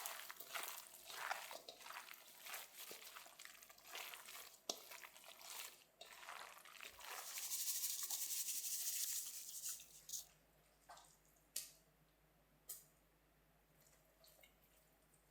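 Kitchen sink water: several seconds of splashing and rinsing, then the tap runs steadily for about three seconds and stops. After that there are a few drips and clicks over a faint low hum.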